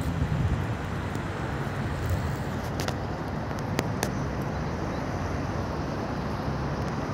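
Outdoor city ambience: a steady low rumble of road traffic, with a few faint clicks about three and four seconds in.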